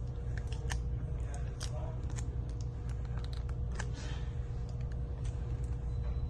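Small irregular clicks and ticks of hand tools working on a smartphone's internals during disassembly, over a steady low hum.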